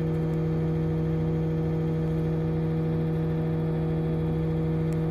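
Motor grader's diesel engine idling, heard from inside the cab: a steady, unchanging hum.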